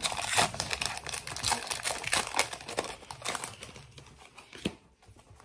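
Pokémon trading-card booster pack being torn open, its foil wrapper crinkling in a quick run of crackling rustles that thins out near the end.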